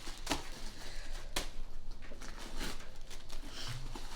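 Handling noises from a leather handbag being moved about: a few separate rustles and light knocks, about one a second.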